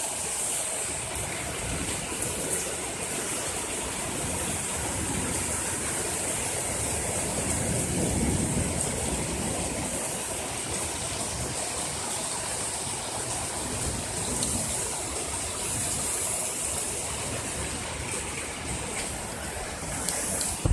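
Heavy downpour of rain, a steady loud hiss of rain falling and splashing, with a slight swell about eight seconds in.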